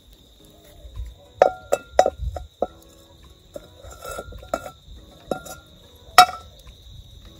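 Stainless steel cooking pot clinking and ringing as it is handled on the stones of a wood fire: a series of sharp metallic clinks, several between one and three seconds in and the loudest about six seconds in. A steady high insect drone runs underneath.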